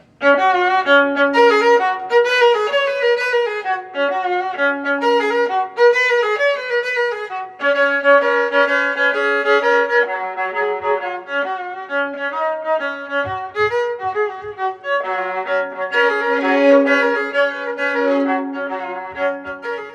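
Intro music: a fiddle or violin tune played over sustained accompanying notes, fading down near the end.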